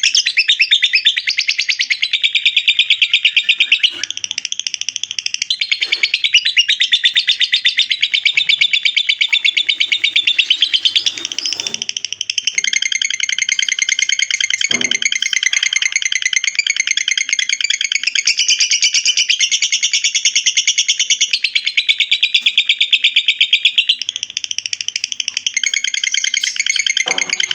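Lovebird ngekek: a long, unbroken chattering trill of very fast repeated high notes that shifts its pitch pattern every few seconds. A few faint low knocks sound beneath it.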